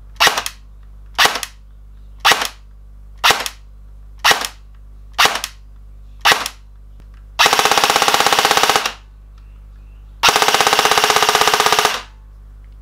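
Stock CYMA CM515 airsoft electric gun, driven by its regular weak stock motor, firing seven single shots on semi-auto about a second apart, then two full-auto bursts of about a second and a half each.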